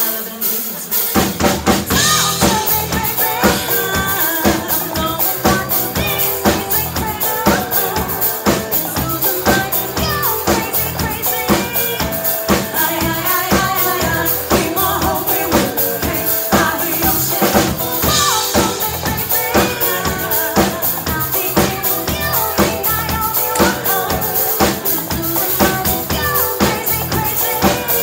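Live pop-rock band playing: drum kit with bass drum and snare on a steady beat, electric bass and electric guitar, with two women singing into microphones. The full band comes in about a second in.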